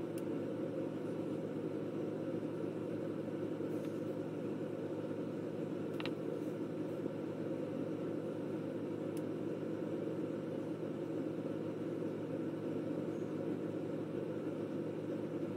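A steady low mechanical hum, with one faint click about six seconds in.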